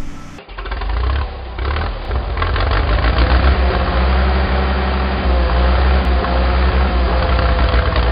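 Sound effect of a heavy truck engine running steadily with a deep rumble. From about three seconds in, a steady mechanical whine joins it.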